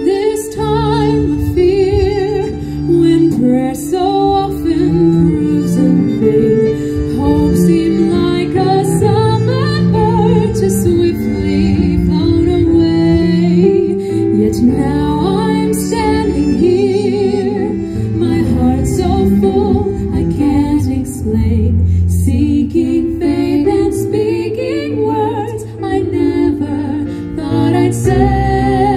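Female voices singing together through microphones with vibrato, accompanied by piano, violin and cello in a live classical-style performance.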